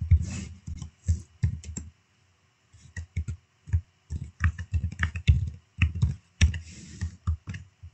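Typing on a computer keyboard: a run of irregular keystrokes, with a short pause about two seconds in before the typing resumes.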